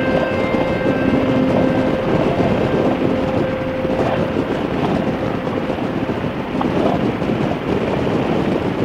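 Wind buffeting the microphone over motorcycle engine and road noise at riding speed, a steady rushing with no breaks. A single steady held tone sounds through it for about the first six seconds.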